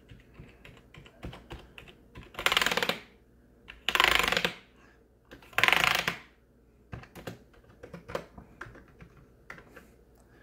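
Keys of a Rii RK100 gaming keyboard being pressed, single clicks scattered throughout, with three louder half-second runs of rapid key mashing a little after two seconds, about four seconds and about six seconds in.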